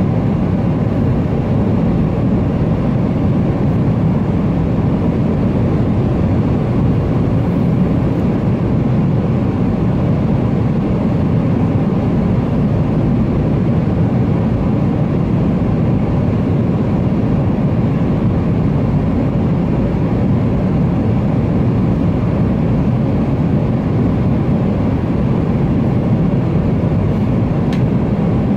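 Steady cabin noise of a Boeing 777-300ER in flight: a deep, even rush of engine and air noise that does not change.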